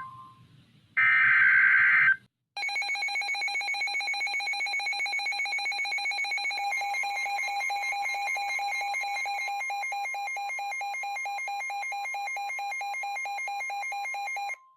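NOAA Weather Radio sounding an Emergency Alert System alert: a last short burst of the screechy digital header, then about twelve seconds of a rapidly pulsing electronic alert tone. A steady tone joins underneath about halfway through. It signals an incoming Severe Thunderstorm Warning.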